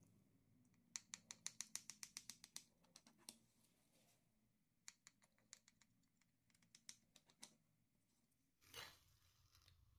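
Faint runs of quick light taps or clicks, about six a second, of kitchen utensil work, followed by a short swish near the end.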